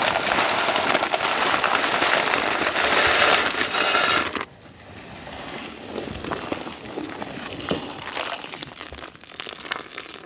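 Rock sugar crystals sliding off a metal plate and pouring into a large pot of milk, a dense crackling rattle for about four and a half seconds that cuts off suddenly. Then quieter stirring with scattered small clicks.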